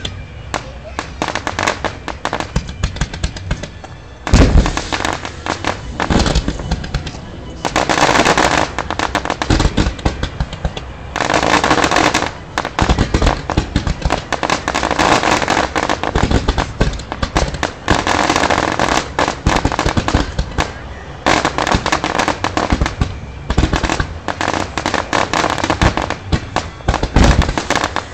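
Fireworks display: rapid bangs, pops and crackling from aerial shells and ground fountains, nearly continuous, with music playing along with the show. The heaviest bangs come about four seconds in and again near the end.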